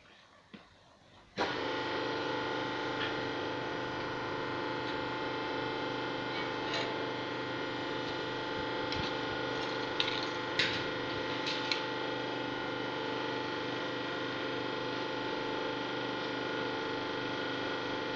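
A machine switches on suddenly about a second and a half in and runs with a steady, unchanging hum. A few sharp clicks or knocks come from it about two-thirds of the way through.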